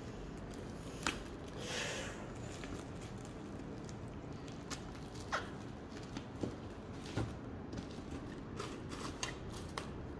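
Bubble wrap crinkling as hands fold and press it around a cardboard box, with scattered sharp crackles and a brief rustle about two seconds in.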